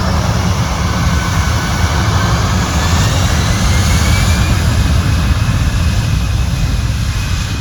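Airliner engines running loud, with a thin whine that rises slowly over a heavy low rumble.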